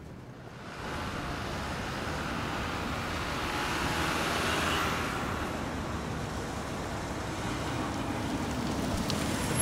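Box truck driving along a city street: engine and tyre noise that swells in about a second in and is loudest near the middle, over steady traffic noise.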